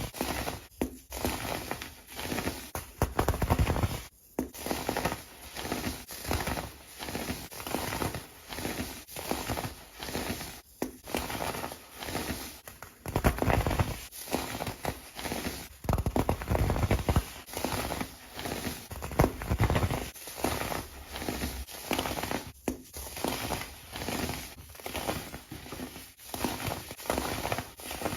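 Kinetic sand being crushed and crumbled: a long run of crunching, crackling bursts, each lasting up to about a second, separated by brief pauses.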